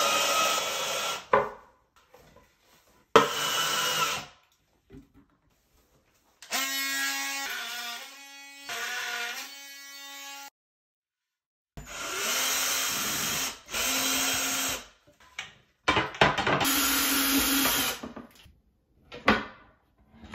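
Cordless drills running in five bursts of one to four seconds, drilling and driving screws. In the middle burst the motor's pitch steps up and down as the trigger speed changes.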